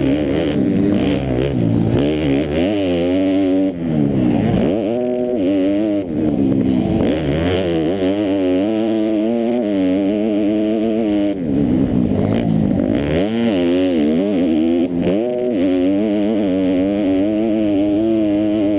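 A four-stroke motocross bike's engine heard up close from on the bike, revving hard and falling off again and again as the throttle is worked around a dirt track.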